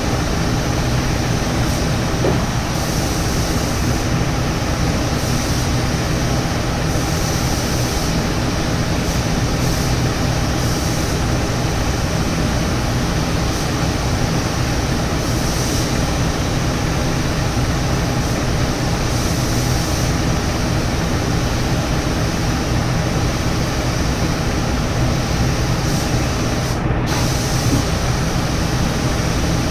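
Spray-painting equipment running steadily during a final paint coat on a boat hull: a constant motor hum under an even hiss of spraying.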